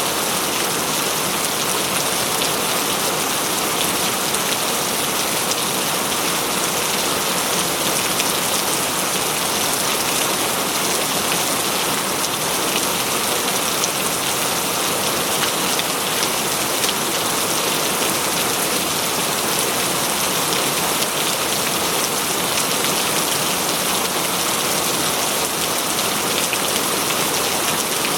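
Steady rain falling on foliage and ground, an even hiss of many fine drops with no let-up.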